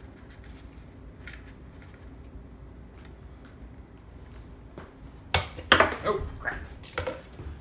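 A few faint ticks, then, about five seconds in, a quick run of knocks and clatter as plastic containers are handled and set down on a kitchen countertop.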